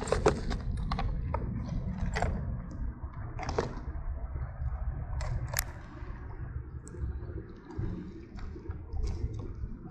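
Scattered small clicks and taps of fishing tackle being handled, over a steady low rumble.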